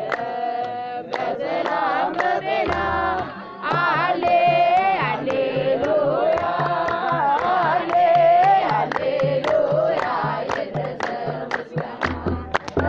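A voice singing a slow, ornamented melody, with notes that bend and slide, over musical accompaniment. A steady low beat joins about three and a half seconds in.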